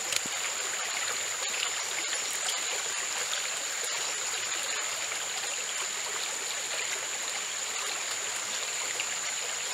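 Jungle stream running steadily over a rocky bed, an even rush of water, with a constant high-pitched whine above it.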